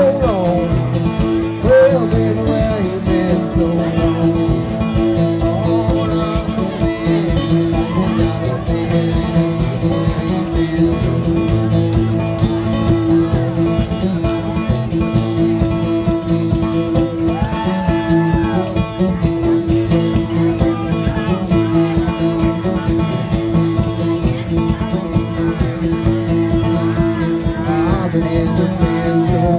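Live banjo and acoustic guitar playing an old-time tune together, with steady, continuous picking.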